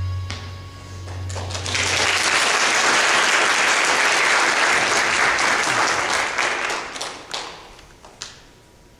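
The accompaniment's last held chord dies away, and a church congregation breaks into applause for about five seconds. The applause fades out with a few last isolated claps.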